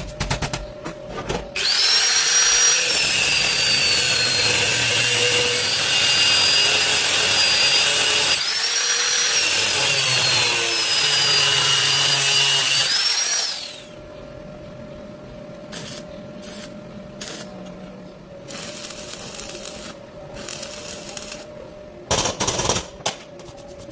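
A power tool motor running for about twelve seconds with a high whine that dips and climbs in pitch as it works, then stopping. Lighter clicks and knocks follow.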